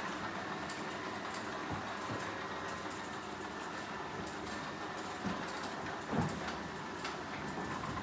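Electric garage door opener running as the door travels open fast, a steady mechanical rumble, with a short knock about six seconds in.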